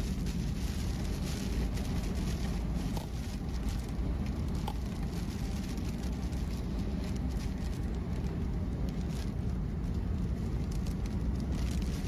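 Steady low rumble of a vehicle on the road, with a hiss of wind and rain over it.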